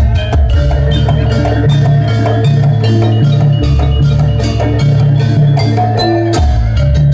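Javanese jaranan accompaniment music: tuned mallet percussion and drums struck in a fast, dense rhythm over held low tones.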